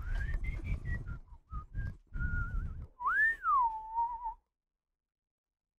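A person whistling a short tune: a string of brief notes with slides between them, then a longer note that swoops up and back down, stopping a little over four seconds in.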